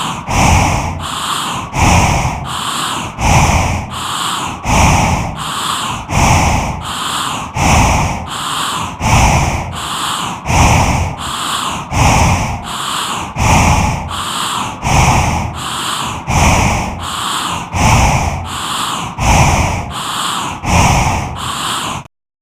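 Heavy, rhythmic human breathing sound effect: quick noisy breaths in an even repeating pattern, with a louder breath about every second and a half, cutting off abruptly near the end.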